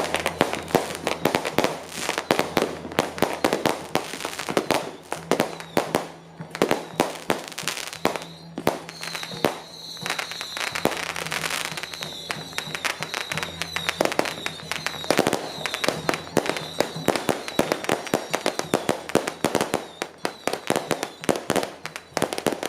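Strings of firecrackers going off in rapid, irregular cracks without a break. A steady high tone sounds through the middle, and a low steady hum runs underneath.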